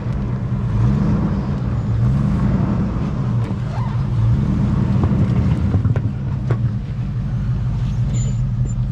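Range Rover P38's engine running steadily as the vehicle is driven slowly, with a few sharp clicks or knocks around the middle.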